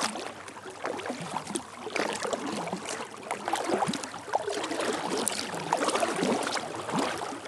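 Kayak paddle strokes in a lake: the blade dipping and pulling through the water with splashing, and water washing along the kayak's hull.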